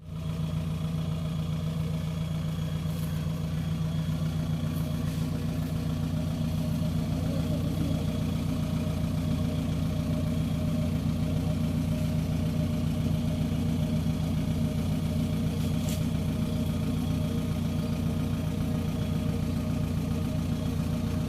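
Kubota DC-70 Plus combine harvester's diesel engine running steadily at a constant speed.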